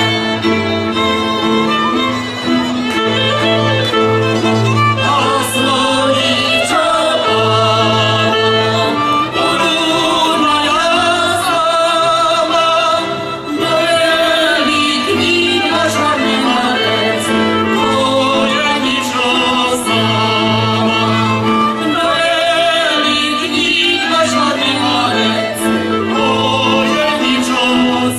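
Czech folk string band playing a dance tune: fiddles carry the melody over a pulsing double bass.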